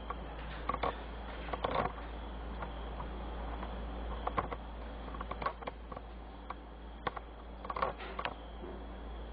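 Quiet room tone: a steady low hum with scattered light clicks and taps.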